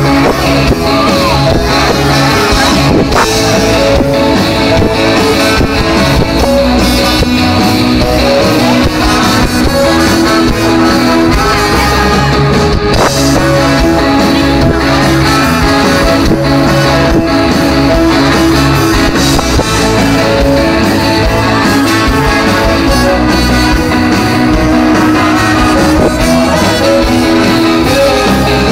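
Live rock band playing loudly and without a break: electric guitar, drums and a singer through a concert PA, heard from within the audience.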